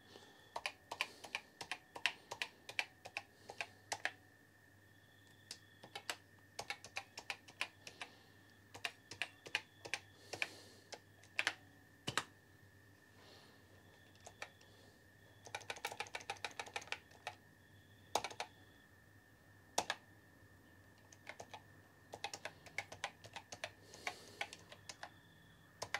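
Commodore PET 4032 keyboard being typed on in irregular runs of key clicks with short pauses, as its freshly repaired keypads are tested.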